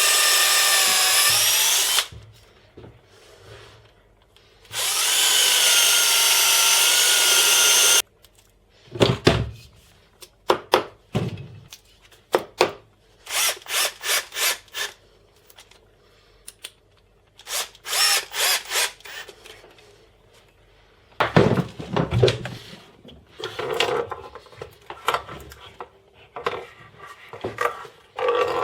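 Power drill running in two long runs, about two and three seconds, with a high motor whine, drilling into the compressor. It is followed by two groups of quick, short trigger pulses and scattered knocks and clatter of tools and parts being handled.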